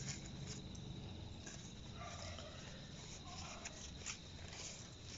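Faint crinkling and rustling of brown kraft paper being unwrapped by hand from a potted plant, in scattered soft crackles.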